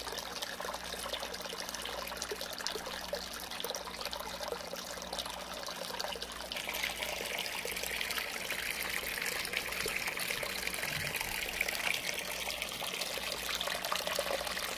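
Cleaning solution pouring out of a clear hose into a tray of foamy water, splashing and trickling steadily as it is pumped back through a plate chiller; the splashing grows louder about six and a half seconds in. A steady low hum runs underneath.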